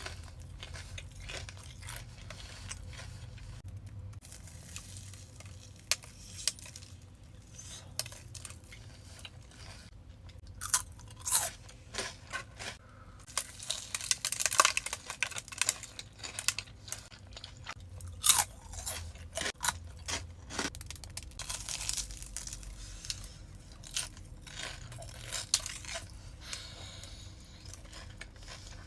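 Close-miked crunchy bites and chewing of a deep-fried Korean corn dog, its crisp batter crackling in sharp bursts. The crunching is loudest and thickest in the middle, with softer chewing either side.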